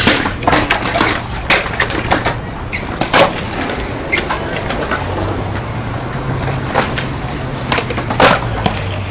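Skateboards on concrete: a string of sharp clacks of boards popping and landing over rolling wheel noise, the loudest a little past eight seconds as a skater jumps close by. A low steady hum runs underneath.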